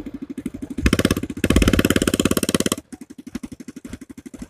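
Small ATV engine running with a rapid, even beat. It gets louder about a second in as the throttle opens, then drops to a softer beat after about three seconds.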